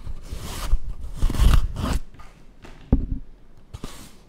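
A fabric pouch rustling and scraping in several bursts as a gift box is pulled out of it, followed by a couple of short, light knocks.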